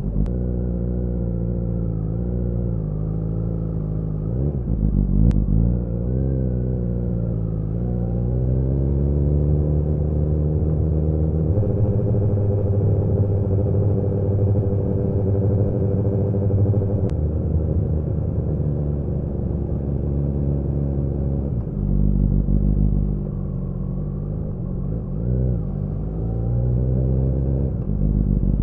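Kawasaki ZX-10R's inline-four engine running under way, heard from the rider's seat. The engine note drops and climbs several times in the first eight seconds, holds steady through the middle, then eases off and rises again near the end.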